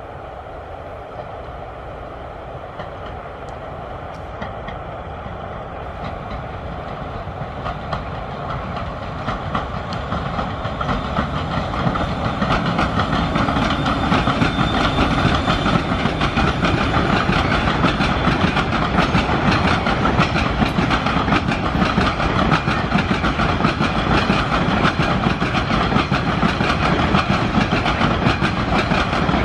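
Long timber train of loaded log wagons rolling past, its wheels clattering over the rails. It grows louder over the first dozen seconds as the train draws close, then holds loud and steady as the wagons pass.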